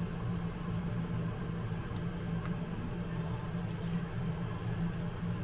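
A chef's knife cutting through roast pork belly on a plastic cutting board, with a few faint crunches from the crisp crackling, over a steady low hum.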